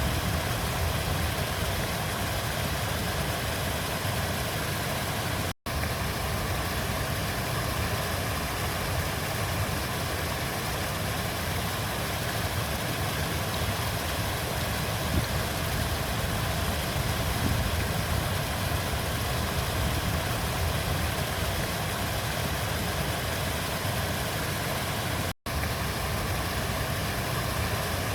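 River water flowing in a steady, even rush with a strong low rumble, broken twice by a split-second dropout to silence.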